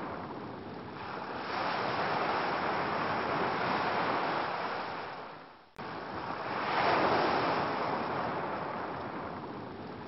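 Ocean waves washing onto a beach, a steady surf noise that swells and eases in slow surges. A little before six seconds in it fades almost to nothing and then cuts back in abruptly.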